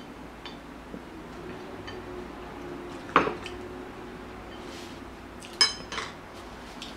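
A bowl set down on a wooden board with a sharp knock about three seconds in, then two clinks of tableware and chopsticks near the end, the first of them ringing briefly.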